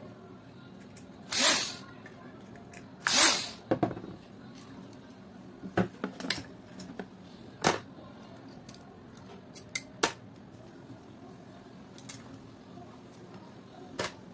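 Clicks and taps of plastic parts as a disassembled Kenwood hand mixer's gear and switch assembly is handled, with two short hissy noises in the first few seconds.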